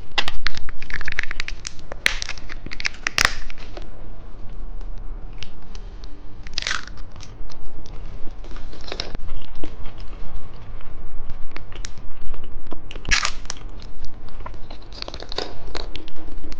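Close-miked candy eating: dense crinkling and tearing of a wrapper in the first few seconds, then scattered bites, crunches and small mouth clicks.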